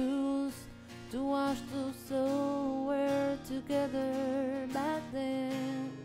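Background music: a slow melody of long held notes.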